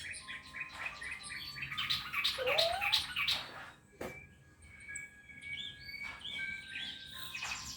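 Several birds chirping and calling over each other: a busy run of quick chirps for the first three seconds or so, then thinner, drawn-out whistled notes.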